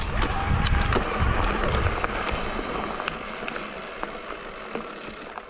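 Wind buffeting the microphone with a low rumble, and scattered sharp clicks and knocks from a bike rattling over a rough trail. The sound fades steadily over the last few seconds.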